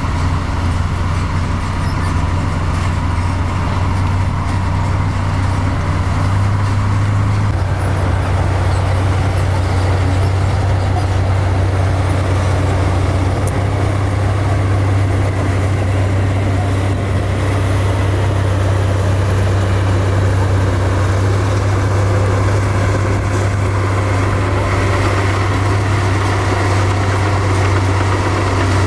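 Heavy diesel engine of earthmoving machinery, such as a bulldozer, running steadily, with a shift in its note about seven seconds in.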